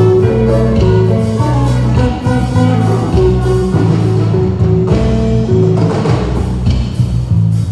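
A band playing through a PA system during a sound check: a loud bass line with drums and guitar, the notes held and changing in a steady beat.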